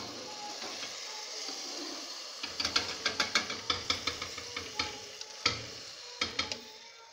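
Sizzling of freshly fried chebakia pastries in hot honey, then from about two and a half seconds in, quick metallic clinks, roughly four a second, of a wire skimmer knocking the aluminium pot as the pastries are stirred in the honey.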